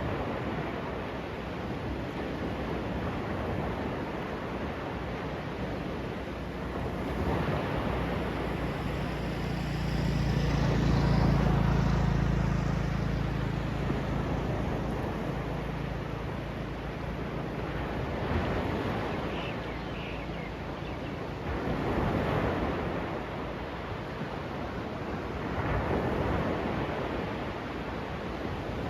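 Sea waves washing onto the beach, surging every few seconds, with wind on the microphone. In the middle a low droning hum swells and fades.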